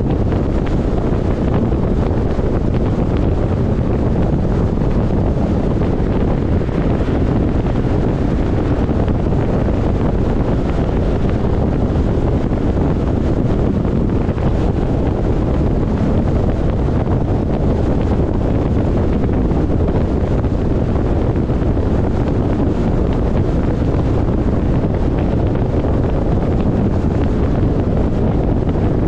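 Steady wind rush and tyre noise from a car driving at highway speed, with wind buffeting the microphone.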